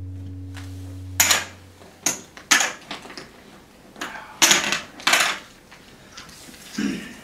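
Poker chips clacking together and against the table as they are handled and tossed, in about six sharp, irregular clicks. A low sustained note from the opening music fades out in the first second or so.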